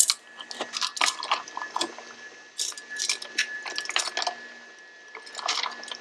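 Metal kitchen tongs clicking and knocking irregularly against a stainless steel pot and plastic sippy-cup parts as they are pushed down into boiling water, with water sloshing between the knocks.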